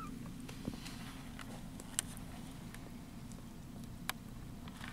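Very young kitten purring, a steady low rumble, with three or four sharp little clicks over it.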